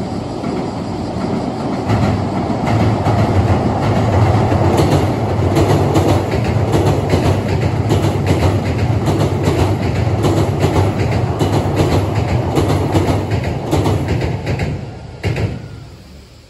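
Hankyu 7000 series eight-car electric train passing over a railway bridge: a steady low rumble with a rapid run of wheel clacks over the rail joints, fading away near the end.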